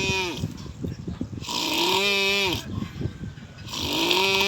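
Rhythmic snoring, one long breath about every two seconds. Each snore carries a pitched tone that rises and falls slightly over a breathy hiss.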